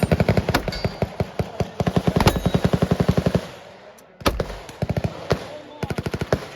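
Full-auto gunfire: a long burst at about ten shots a second lasting some three and a half seconds, then after a short pause a few single shots and a shorter rapid string near the end.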